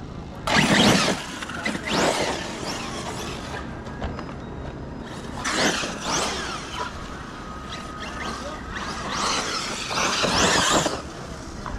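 Electric RC buggy driven in four short throttle bursts, its motor whine rising and falling in pitch with each burst, mixed with the noise of its tyres on dirt and grass.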